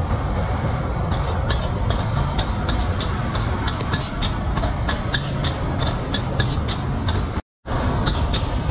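Metal spatula clinking and scraping against a wok in quick, uneven strikes during a stir-fry, over a steady low rumble. The sound drops out briefly near the end.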